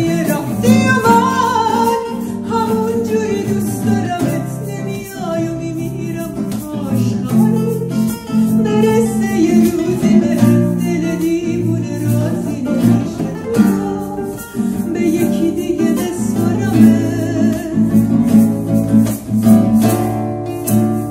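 Two acoustic guitars playing an instrumental passage of a pop ballad, with a hand shaker rattling the beat.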